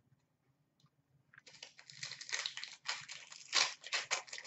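Foil wrapper of a hockey card pack crinkling and tearing as it is opened, a dense run of rapid crackles starting about a second and a half in.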